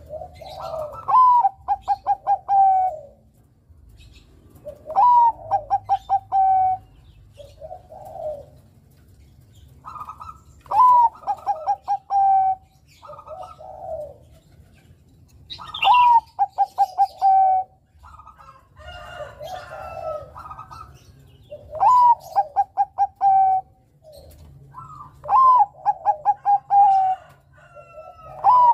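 Zebra dove (Bangkok-strain perkutut) singing its cooing song. Each phrase is a rising note followed by a quick run of short, clipped coos, repeated about every five seconds, with softer low coos in between.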